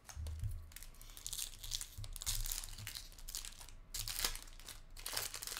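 Foil wrapper of a trading-card pack being torn open and crinkled in the hands, in several separate bursts of crinkling.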